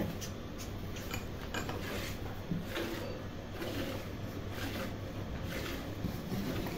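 Jets of milk squirting by hand into a steel bucket in a steady rhythm of about two squirts a second.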